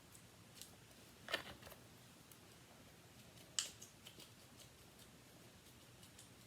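Faint handling noise of slime being put away in its container: a few small clicks and rustles, with two sharper clicks about one and a half and three and a half seconds in.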